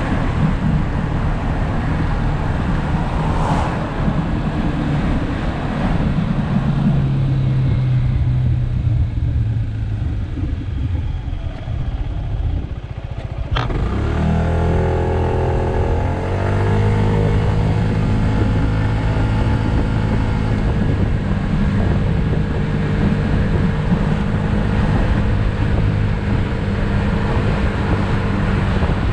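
Yamaha SMax scooter's single-cylinder engine heard while riding, with wind noise over it. The engine note falls as the scooter slows, there is one sharp click about halfway through, and then the note rises as it accelerates and settles to a steady cruise.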